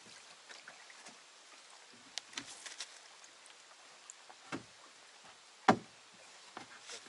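Scattered light clicks and knocks, with one sharp, louder knock about six seconds in.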